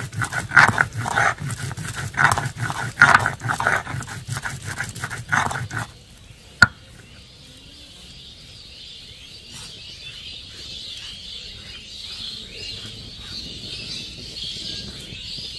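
Stone roller of a sil-batan rubbed and rocked back and forth over the pitted stone slab, grinding a wet ginger-garlic-chilli paste in rough strokes about three a second. The grinding stops about six seconds in, and a single sharp knock follows.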